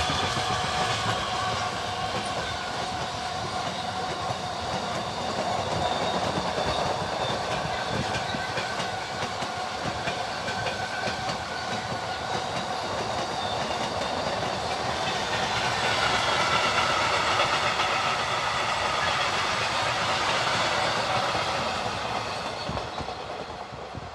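Freight train rolling past, its wagons' wheels running on the rails with several ringing tones that waver in pitch; the sound fades away near the end.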